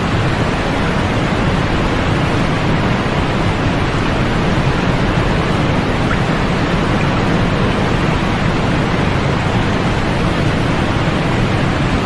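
Continuous white-noise sleep sound: an even, unchanging rushing hiss with more weight in the lows than the highs.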